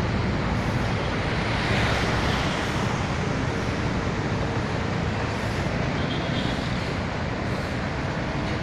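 Steady road traffic noise from cars and other vehicles on a multi-lane city road, growing briefly louder about two seconds in.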